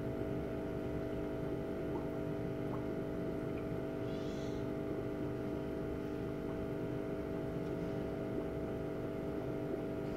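A steady mechanical hum with several held tones over a low rumble.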